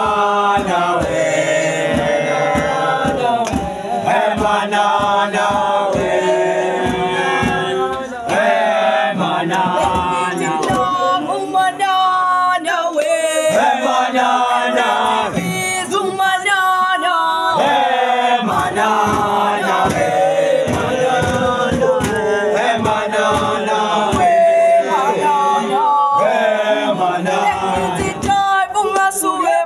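A group of young men singing together in chorus, a chant-like song in several voices.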